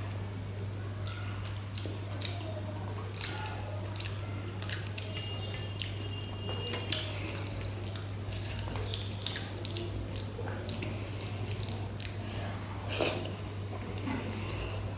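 Wet squishing and sticky clicks of rice and kadi being mixed and scooped by hand on a steel plate, with mouth sounds of eating, over a steady low hum.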